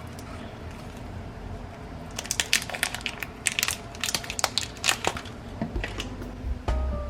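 A dense run of sharp crackling and crunching clicks, from food or its packaging being handled during kitchen prep, starting about two seconds in and thinning out after about five seconds.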